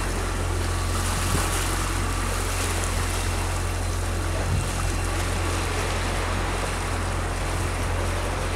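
Water rushing along the hulls of a sailing catamaran under way: a steady hiss over a constant low rumble.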